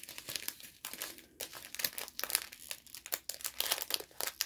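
Thin plastic packaging crinkling as it is handled, a steady run of small crackles.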